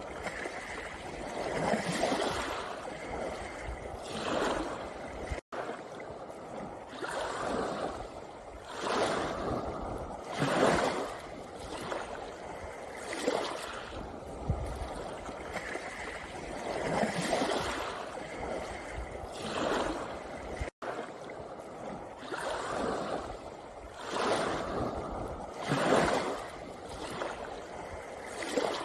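Small sea waves washing onto a pebble beach, each surge swelling and falling back every two to three seconds. The sound drops out to silence for an instant twice.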